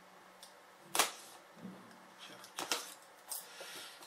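Thin plastic film on a cardboard box being cut and crinkled: four or so sharp crackles and snaps, the loudest about a second in.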